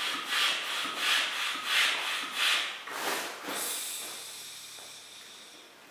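Hand air pump inflating a float tube's bladder: rhythmic pumping strokes, about one and a half a second, that stop about three seconds in, followed by a steady hiss that fades away.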